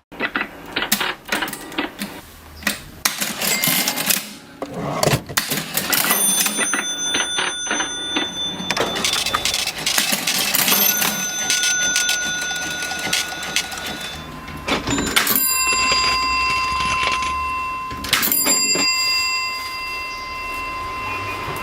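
Vintage mechanical cash register being worked: a dense run of key and lever clacks. Its bell rings about four times, each ring holding on for a few seconds.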